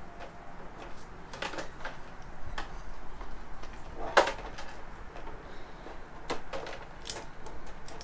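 Irregular clicks and knocks of motorcycle fairing parts and screws being handled during disassembly, the sharpest knock about four seconds in.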